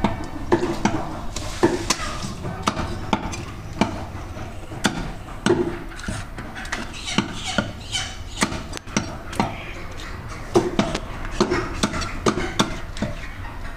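Meat cleaver chopping mutton head meat and bone on a thick wooden chopping block: sharp, irregular knocks, roughly one or two a second.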